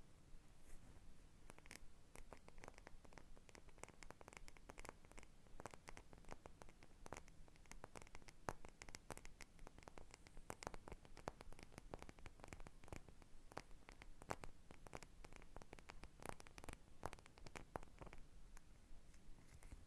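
Hands scratching and handling an object close to the microphone: a faint, dense run of quick soft scratches and clicks.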